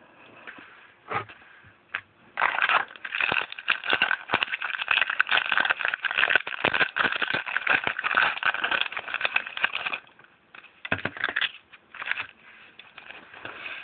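Trading-card pack wrapper being torn open and crinkled by hand: a dense run of crackling from about two seconds in to about ten seconds, with a few single crackles before and after.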